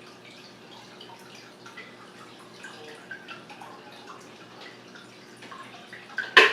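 Water trickling and dripping inside a washing machine running after its clogged drain pump was cleared, with a single sharp knock near the end.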